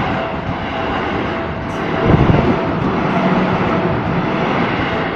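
Seibu 20000 series electric train running over a level crossing: a steady rumble of wheels on rail with a thin steady whine, and a heavier low thump about two seconds in.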